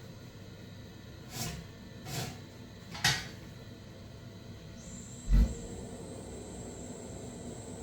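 Handling noises: three brief scraping rustles, then a single heavy thump about five seconds in. A faint steady high whine runs on after the thump.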